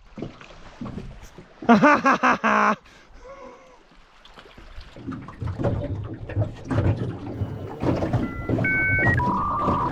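Aluminium rowboat being rowed: irregular knocks from the oars and oarlocks with water noise, starting about halfway through. Before that, a brief loud voice-like sound about two seconds in, and near the end a few steady music notes begin.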